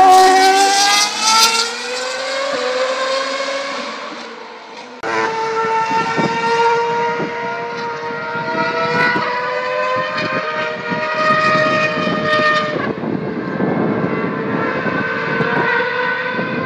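2012 Formula 1 car's 2.4-litre V8 engine at high revs, its pitch falling as it moves away and fades over about four seconds. After a sudden cut about five seconds in, more F1 V8 engine noise from across the circuit: a steadier engine note that rises and falls slightly with the throttle.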